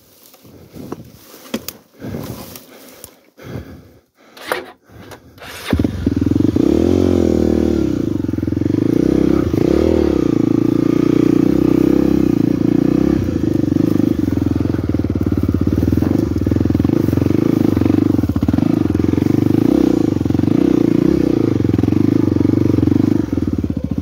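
Honda Tornado 250 single-cylinder four-stroke dirt bike: a few seconds of knocks and scrapes with the engine off, then the engine starts about six seconds in, revs up twice and runs steadily as the bike is ridden on.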